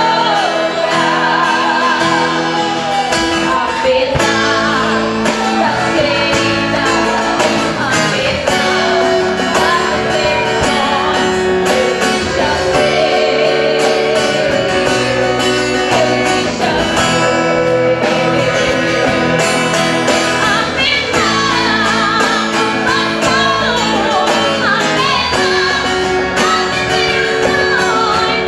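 Live gospel music: a vocal group singing over guitar accompaniment, with sustained chords underneath.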